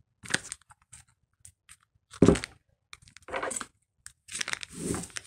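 A mailed package being handled and torn open: scattered rustling, crinkling and tearing of the wrapping, with a louder knock about two seconds in.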